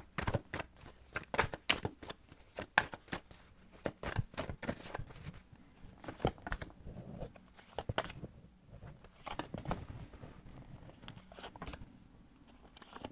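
A deck of oracle cards being shuffled by hand, a rapid run of soft snaps and flicks that thins out about halfway through, then cards being dealt onto a wooden table.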